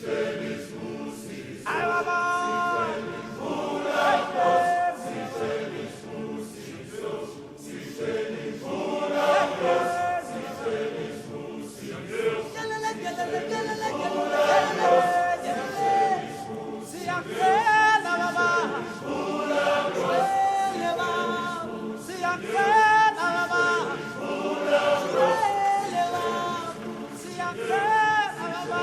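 A choir singing: several voices together, starting suddenly and carrying on throughout.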